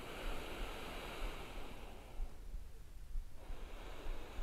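A person's long, slow breath: a soft rush of air lasting about three seconds that fades out.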